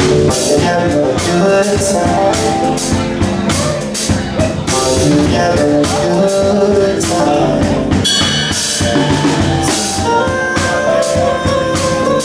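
Live jazz-funk band playing: a drum kit keeps a steady beat with cymbal and drum hits, under bass and keyboard notes.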